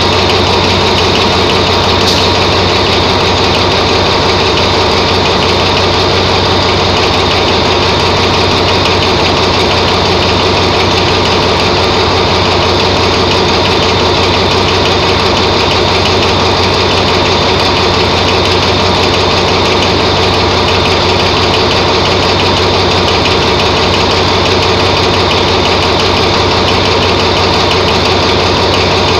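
Diesel-electric locomotive engine idling close by, a loud, steady low rumble that stays even throughout.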